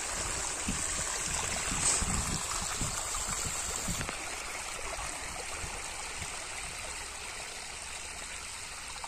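Steady rushing of flowing water, with a few soft squelching footsteps in wet mud during the first three seconds.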